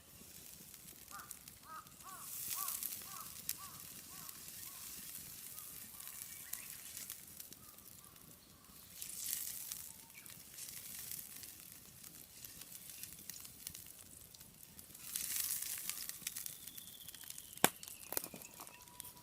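A bird calling a quick run of about nine short notes, over outdoor ambience with three brief bursts of hiss and a single sharp click near the end.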